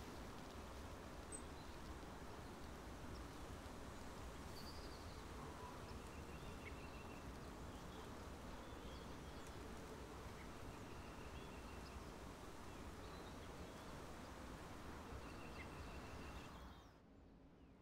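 Outdoor ambience: a steady low wash of background noise with faint, brief bird chirps and trills now and then. It cuts off near the end to much quieter room tone.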